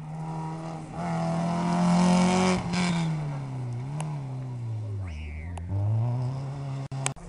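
Rally car engine revving hard as it passes, its pitch climbing to a peak about two seconds in, then falling and rising again several times as the driver lifts off and gets back on the throttle.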